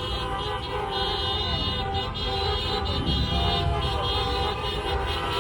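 Many car horns honking at once in street traffic, their steady tones overlapping, over the rumble of passing cars.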